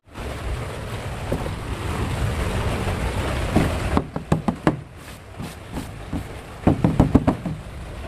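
A steady low rumble and hiss, then a hand handling a boxed toy figure, tapping and rubbing the cardboard box and its plastic window: a run of clicks and knocks about four seconds in, and a louder cluster near the end.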